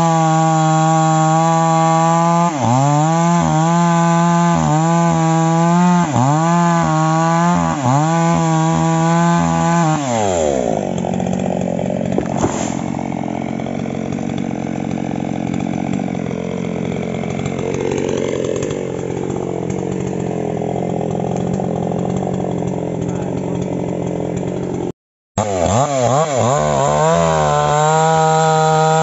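Falcon petrol chainsaw at full throttle cutting into a tree trunk, its revs dipping and recovering about every two seconds as the chain bites. About ten seconds in the revs fall away and it runs at low speed for a while. After a brief break near the end it is back at full throttle, cutting again.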